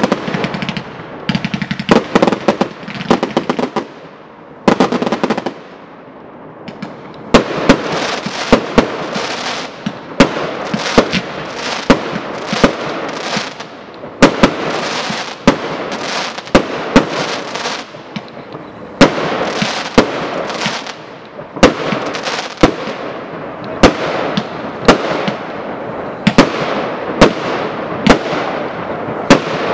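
Fireworks display: aerial shells bursting in sharp bangs. After a dense opening flurry and a brief lull about five seconds in, the bangs come in a steady series, about one a second.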